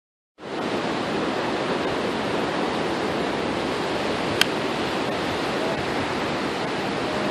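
A golf iron strikes the ball off the tee with one sharp click about four seconds in, over a steady rush of ocean surf and wind.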